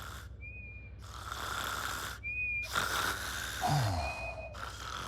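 Cartoon snoring sound effect: slow, breathy rasping breaths, each answered by a short, high whistle.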